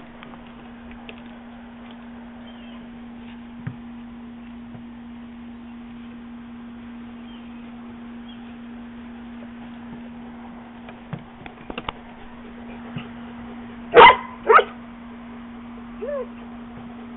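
A dog barks twice in quick succession about fourteen seconds in, followed shortly by a single short, higher call, over a steady low hum.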